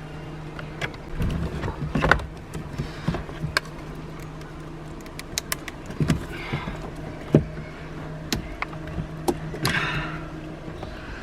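Wiring connectors under a Nissan 240SX dash being worked loose and unplugged: scattered sharp plastic clicks and knocks with brief rustling of the wiring harness, over a steady low hum.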